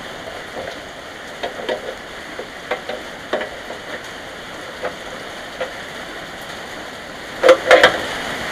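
Light metal clicks and clinks of hand tools and engine parts being handled, scattered over a steady hiss, with two louder knocks near the end.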